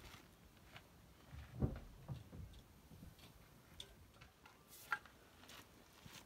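Faint, scattered small clicks and light taps, with a soft low thump about a second and a half in and a sharper click near the end.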